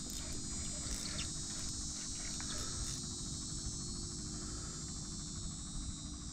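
Steady high-pitched insect chorus from the mangroves, with a low rumble underneath and a few faint clicks.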